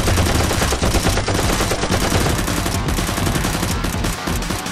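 Rapid automatic gunfire sound effects dubbed over Nerf blasters, with shots close together and overlapping.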